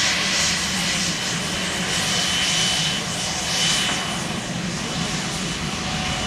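Dassault Falcon 2000LX business jet's twin Pratt & Whitney Canada PW308C turbofans running: a steady rushing jet noise with a high whine that comes and goes, easing slightly in the second half.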